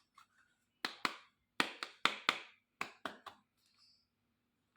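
Small plastic toy kitchen pieces tapping and clicking together as they are handled: about nine sharp clicks, mostly in pairs, over a couple of seconds.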